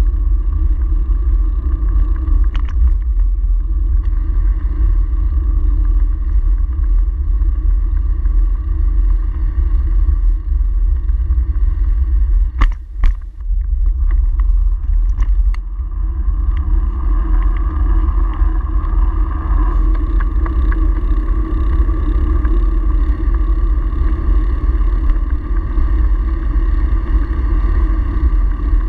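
Steady low rumble of wind buffeting and tyre noise on a handlebar-mounted camera while riding a bicycle along town streets. A few sharp knocks come about 13 seconds in.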